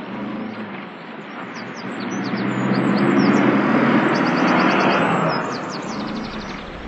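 A road vehicle passing by, its noise swelling to a peak about three to four seconds in and then fading, with rapid high bird chirps above it.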